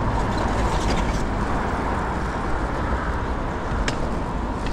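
Steady traffic and road noise heard from a moving bicycle on a city street, with one faint click near the end.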